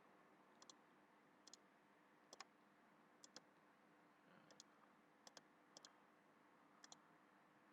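Computer mouse buttons clicking faintly, about eight times at irregular intervals, each click a quick press-and-release double tick, over a faint steady hum.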